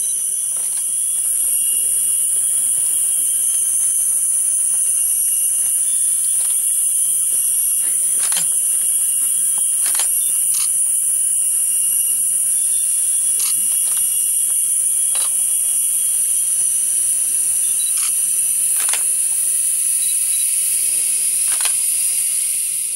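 A loud, steady, high-pitched drone of rainforest insects, with fainter insect trills lower down and scattered sharp clicks every second or two.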